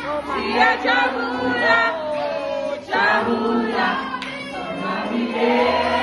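A group of young people singing and chanting together in a loud, lively crowd.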